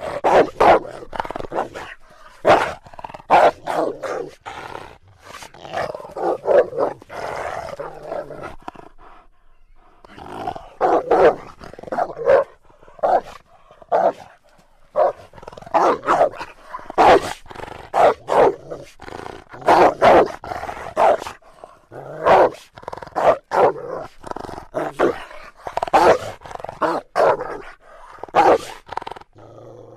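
Hyena vocal sound effects from an animated film: a long run of short, separate calls and growls in quick bursts, with a brief lull about a third of the way through.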